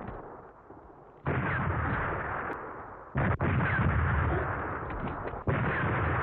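Battle gunfire and blasts on an old film soundtrack with a muffled, narrow sound. The din dies down at first, then breaks in suddenly three times, about a second, three seconds and five and a half seconds in, and each time carries on as dense shooting.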